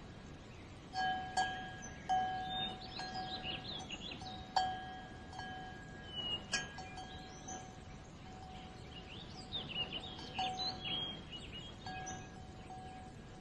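Short bird-like chirps and whistles over a steady ringing tone, like a chime, that sounds and breaks off several times.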